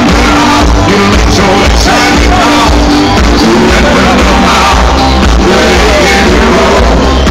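Loud rock/pop music with a singer, played through an outdoor stage's sound system and heard from within the crowd.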